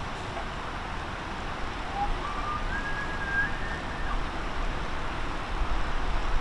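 Distant bull elk bugling once: a thin whistle that rises in steps and is held high for about two seconds before breaking off, over a steady hiss and low rumble.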